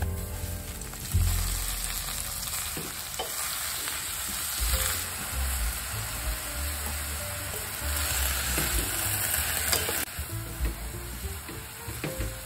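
Minced garlic sizzling in oil in a stainless steel pan, then fresh Peperomia pellucida (shiny bush) greens sautéing as a wooden spatula stirs them, with a few knocks of the spatula against the pan.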